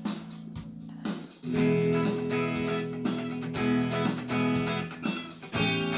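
Music led by strummed guitar chords, getting fuller and louder about a second and a half in.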